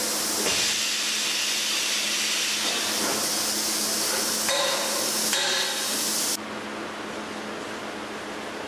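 A steady hiss with a faint low hum that cuts off suddenly about six seconds in, with a few knocks shortly before it stops.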